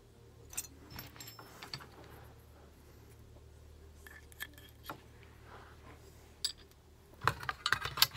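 Small metal parts of a 1911-pattern pistol clicking and clinking as they are handled and fitted by hand, with scattered light clicks and a louder run of clinks near the end.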